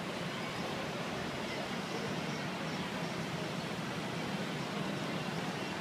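Busy city street ambience: a steady, even rush of traffic and street noise with no single sound standing out.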